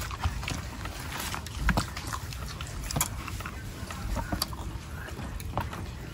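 Close-up eating sounds: chewing and lip-smacking with scattered short wet clicks from mouths.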